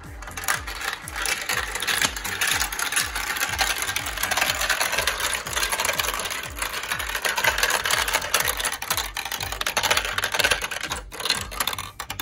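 Marbles rolling and clattering down a plastic marble run: a dense, continuous rattle of quick clicks as they run through the swirl bowl, tubes and tracks into the catch tray.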